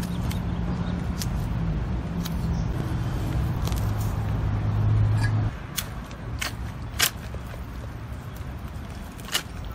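Knife filleting a lingcod: scattered sharp clicks from the blade and the handling of the fish, over a low steady hum that cuts off about five and a half seconds in.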